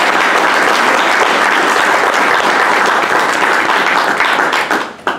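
Audience applauding, a dense sustained clapping that dies away suddenly near the end with one last clap.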